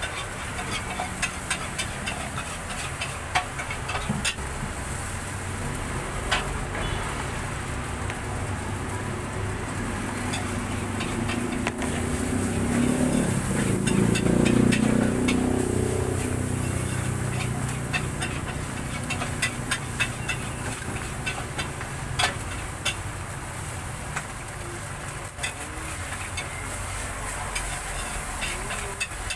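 Knife chopping and tapping on a cutting board: sharp clicks at irregular intervals over a steady hiss. Around the middle a low rumble swells and fades, the loudest sound.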